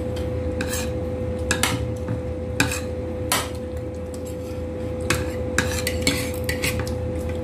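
Metal utensils clinking and scraping against plates or a pot, in irregular clicks and knocks, over a steady low hum.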